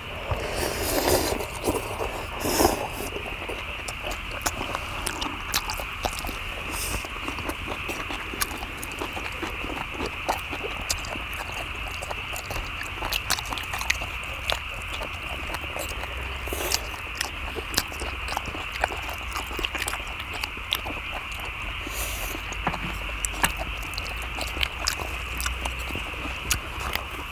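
Several people eating stir-fried pork with kimchi: chewing, lip-smacking and many short clicks of mouths and chopsticks, with two louder bursts in the first three seconds, over a steady hiss.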